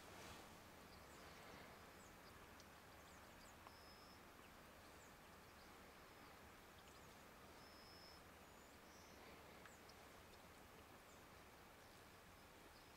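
Near silence: faint outdoor background hiss, with a few brief, faint high peeps.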